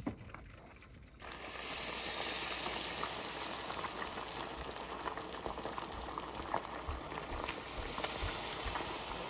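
Beer-battered puffer fish pieces deep-frying in a pot of hot oil: a steady, dense sizzle and bubbling with small crackles, starting about a second in.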